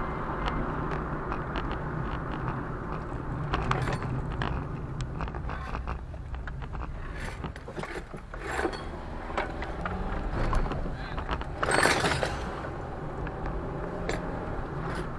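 Road and engine noise of a moving car, heard from inside the cabin, with scattered small clicks and rattles. A brief louder rush of noise comes about twelve seconds in.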